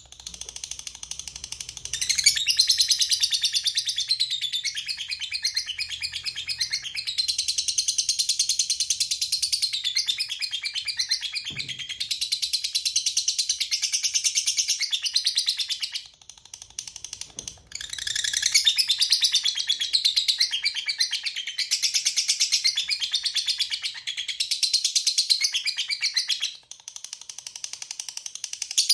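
Lovebird chattering in its long 'ngekek' song: a rapid, shrill, unbroken run of notes. It grows loud about two seconds in, breaks off for a couple of seconds midway, then resumes.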